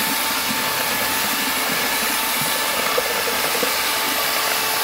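Handheld electric paddle mixer running steadily, its paddle churning slurry grout in a plastic bucket: a constant motor whine over a loud rushing noise.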